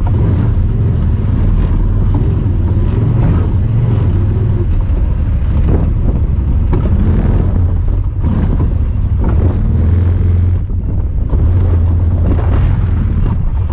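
Honda Talon 1000R side-by-side's parallel-twin engine running steadily under way, a continuous low drone with occasional knocks and rattles scattered through it.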